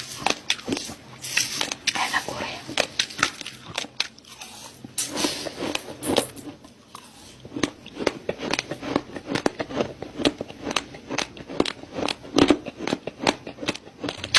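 Close-miked chewing of raw rice grains: many sharp, irregular crunches and crackles as the hard grains break between the teeth, easing off briefly about halfway through.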